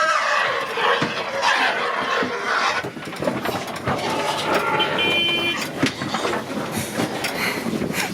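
Pigs squealing and jostling inside a livestock transport truck, over the noise of the truck's engine running.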